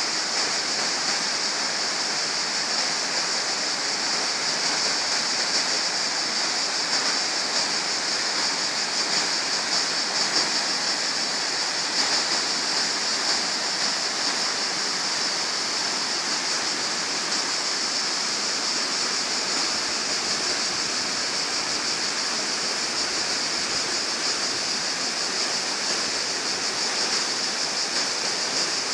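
A shallow brook rushing steadily over small rocky cascades and riffles, a constant splashing rush of water.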